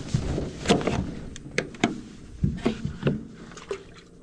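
Handling noise on a wooden dock: a string of light knocks and clatters, several close together at times, as hands and gear bump against the boards.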